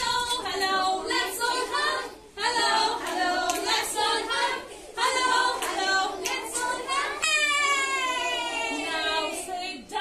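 A large group of children singing together in unison, in phrases about two and a half seconds apart, the last a long held note that slides downward.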